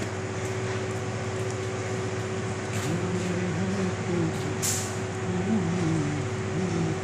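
A steady low mechanical hum, with a wavering, voice-like pitched sound from about three seconds in and a short hiss a little past the middle.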